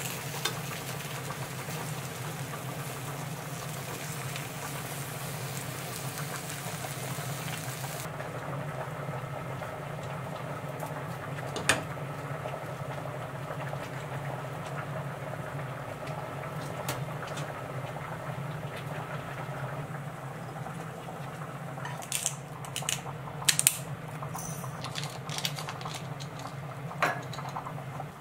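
Eggs and sausages sizzling in a frying pan, over a steady low hum. The high hiss of the frying drops away about eight seconds in, and later come a few sharp clicks of utensils against the pan and dishes.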